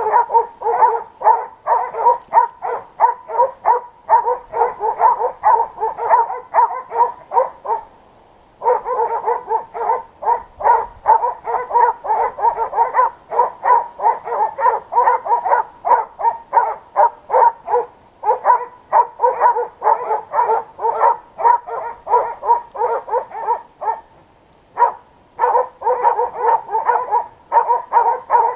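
Hunting dogs on a wild boar, barking fast and without letup at about four barks a second, with two short breaks.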